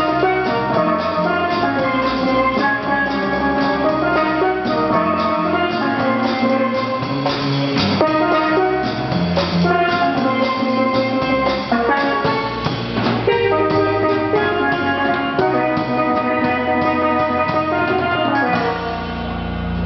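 Steelpan played fast, a rapid run of struck, ringing melodic notes, over a drum kit and an upright double bass. Near the end the rapid notes stop, leaving a held low note.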